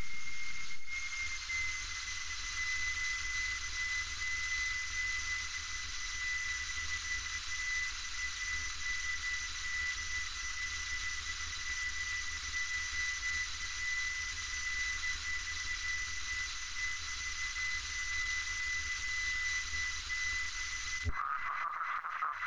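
Cabin noise of a single-engine light aircraft in flight: a steady airflow hiss with a thin high whistle that drops slightly in pitch about two seconds in. The sound cuts off abruptly near the end.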